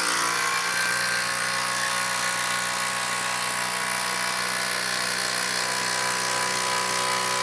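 HILTI 12-volt impact driver hammering steadily as it drives a 6-inch lag screw into a wooden beam.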